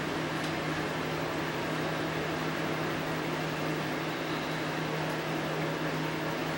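Steady low hum with an even hiss over it, a constant machine-like background noise that does not change.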